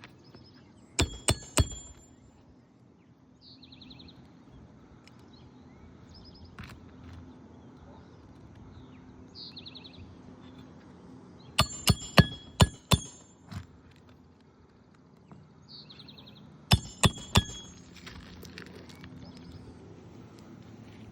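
Hammer driving roofing nails into asphalt shingles: three quick ringing strikes about a second in, a run of about five in the middle, and three more near the end. Birds chirp briefly between the strikes.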